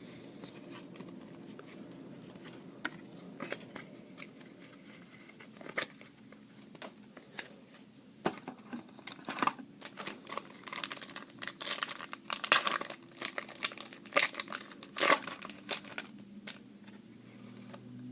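Trading-card pack wrapper being torn open and crinkled by hand. Mostly quiet handling for the first half, then a run of sharp crinkles and rips near the end.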